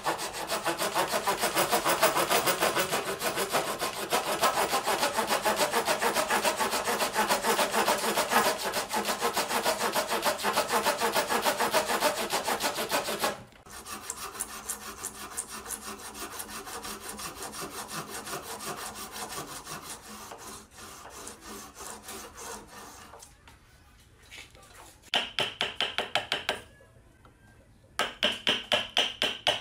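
Hand saw cutting into a wooden board with quick back-and-forth strokes. The sawing is loud for about the first thirteen seconds, then quieter, and near the end comes in two short runs of rapid strokes with a higher ringing note.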